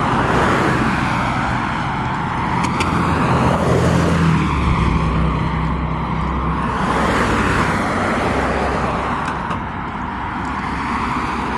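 Cars, SUVs and a pickup truck driving past one after another, the tyre and engine noise swelling as each goes by.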